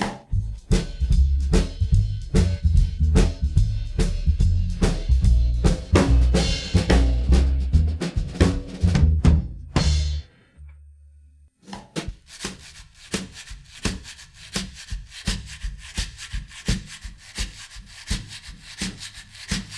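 Layered drum-kit percussion with snare, bass drum and rimshot hits, playing a busy, driving rhythm over deep thumps. It breaks off about ten seconds in, leaving only a low hum for about a second, then comes back lighter and quicker, with fast, even hits.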